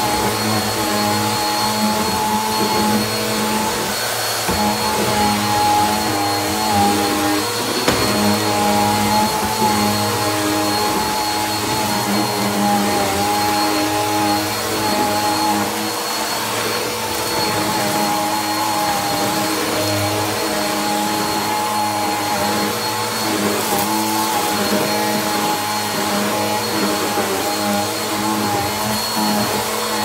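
Bagless upright vacuum cleaner running steadily as it is pushed back and forth over a bare hardwood floor, with a constant motor hum and a thin high whine.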